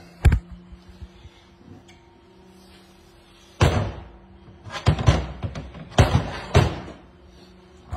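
Clunks and knocks of heavy metal parts as the forward drum assembly of a 4L80E automatic transmission is pulled from the case: a sharp knock at the start, a loud clunk about three and a half seconds in, then a run of knocks between five and six and a half seconds.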